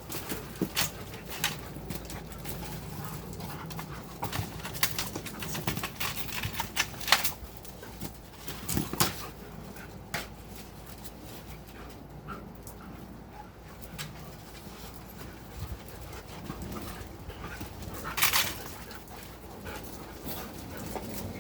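Dogs at play: scattered short scuffling noises and sharp sounds from the dogs moving about, coming in clusters, with a louder flurry about 18 seconds in.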